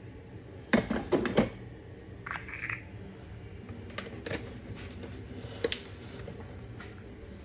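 Clicks and knocks of small objects being handled in a small room, with a quick cluster of louder knocks about a second in and a few single clicks later, over a faint steady low hum.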